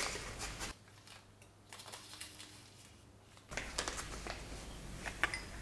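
Soft crinkling of a paper baking-powder sachet and light clicks of a teaspoon scooping from it. About a second in the sound drops almost to silence for a couple of seconds, then the faint rustling and clicking resume.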